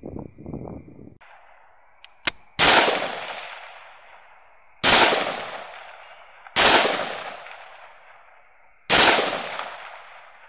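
Four rifle shots about two seconds apart, each echoing away over a second or more, with two short sharp clicks just before the first shot.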